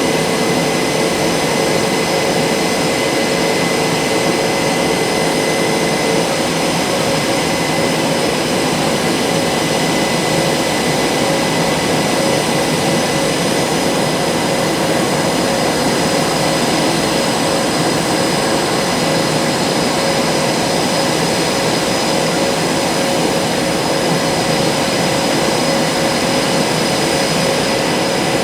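Boeing F/A-18 Super Hornet jet engines running steadily at close range: a constant rush of turbine noise with several steady high-pitched whines. One lower whine drops out about six seconds in.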